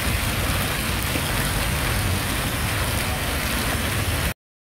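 Decorative fountain jets arcing into a pool, the water splashing steadily onto the surface, with a low rumble underneath. The sound cuts off suddenly near the end.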